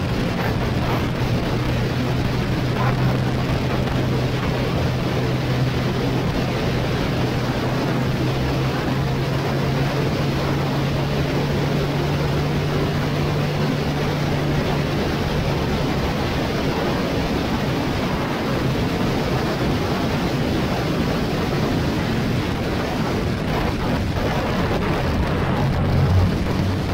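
Motorcycle riding at speed: a steady engine note under heavy wind rush on the microphone. The engine tone fades into the wind about halfway through and comes back near the end.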